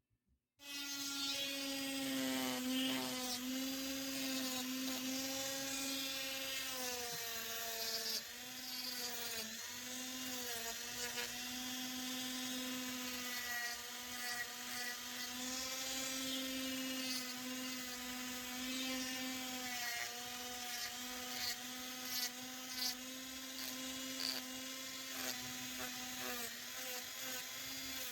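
Small electric power tool, such as a rotary tool or drill, switched on about half a second in and running with a steady high whine, its pitch dipping briefly now and then as it works the wood.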